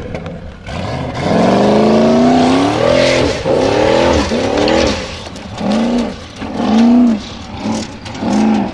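Formula Offroad competition buggy's engine revving hard on a steep dirt-hill climb: one long rise in pitch, then a string of short bursts, each rising and falling in pitch as the throttle is worked.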